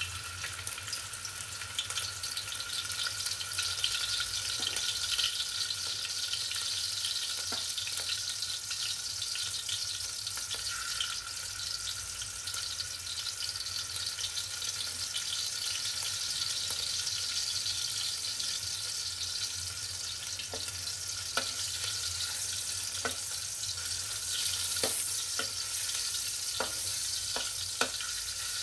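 A piece of salted fish sizzling steadily as it fries in a little hot oil in a wok. A few sharp ticks come in over the last several seconds.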